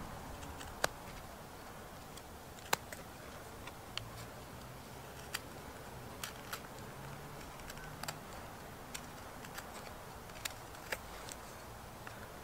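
Knife blade whittling a small piece of wood: irregular, crisp clicks and snaps as cuts bite and shavings come off, about one a second, over a faint steady hiss.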